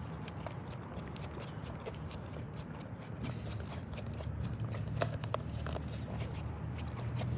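A dog licking and chewing: faint scattered wet clicks, a few sharper ones about five seconds in, over a low steady hum.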